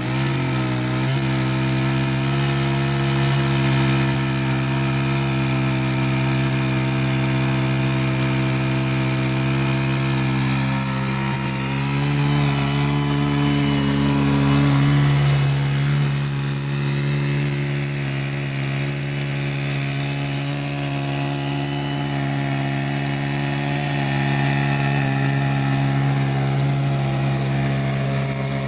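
Chainsaw mill ripping through a large log: the two-stroke chainsaw engine runs steadily at high revs under load, its note shifting slightly about eleven seconds in.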